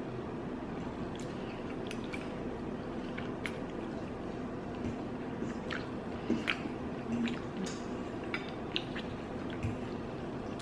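Wet mouth sounds of a person chewing and slurping spaghetti in tomato sauce: scattered small smacks and clicks, busiest about six to eight seconds in.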